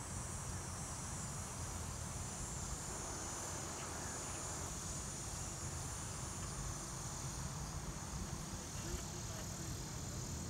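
A steady, high-pitched late-summer insect chorus, crickets or similar chirring insects, with a low steady rumble underneath.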